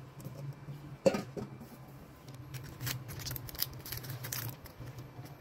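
One sharp knock about a second in, then a couple of seconds of crisp rustling and scraping as brownie batter is scraped from a stainless steel bowl with a spatula and the parchment paper lining the baking tin is handled. A low steady hum runs underneath.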